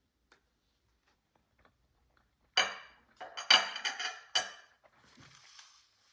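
Hard objects clattering: about five sharp ringing clinks in quick succession, like dishes being handled, followed by a short, softer rustle.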